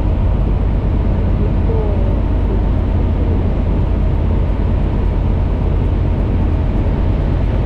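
Light aircraft's propeller engine droning steadily, heard from inside the cockpit in flight.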